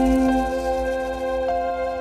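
Music with no singing: a held chord rings on while a few single notes are picked over it, in a slow acoustic guitar song.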